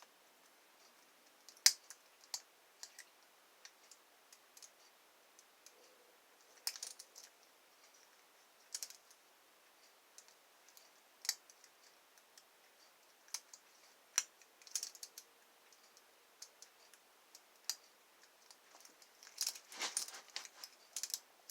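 Small metallic clicks and light scrapes of a lock pick working the pins inside a lock, in scattered single ticks and short clusters, busiest near the end.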